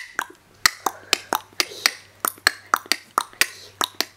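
Repeated sharp finger snaps, about four a second and unevenly spaced.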